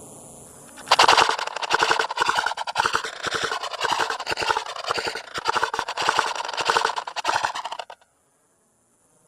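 Loud, rapid clatter of sharp reports like automatic gunfire. It starts about a second in, runs for about seven seconds, and cuts off abruptly.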